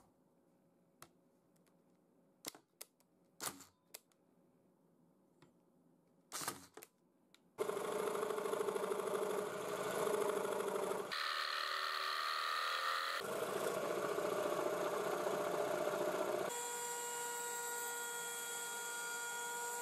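A few light clicks and taps of small plywood pieces being handled. Then, about seven and a half seconds in, a table-mounted jigsaw starts cutting plywood and runs steadily, its sound changing a few times as the cut goes on. A router at the router table runs near the end with a steady high whine.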